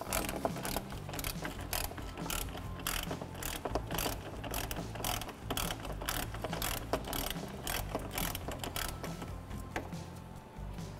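Ratchet wrench with a 10 mm socket clicking in quick, uneven runs as it backs out a fan shroud bolt; the clicks thin out near the end.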